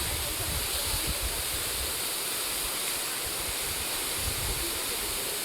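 Steady rushing roar of a large waterfall, water pouring off a cliff edge onto the rocks below.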